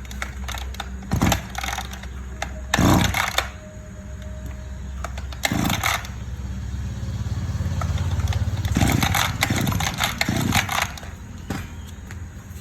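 Small petrol engine of a brush-cutter or chainsaw running steadily, growing louder from about six seconds in, with several short, sharp, louder bursts over the hum.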